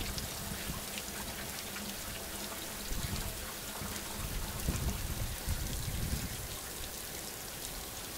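Steady rain falling, a continuous hiss full of fine drop patter, with a few low rumbles in the middle.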